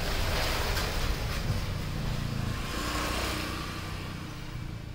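A road vehicle going past: a low engine rumble with a hiss that swells over the first seconds and fades toward the end.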